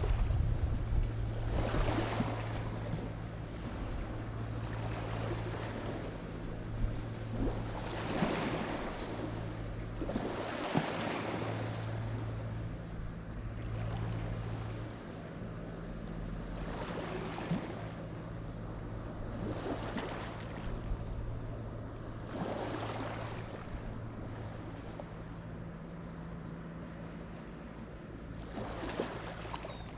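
Lake Michigan waves washing onto the shore, each breaking wave a swell of rushing noise every two to six seconds. Under it runs a low steady hum that fades out around the middle and comes back later.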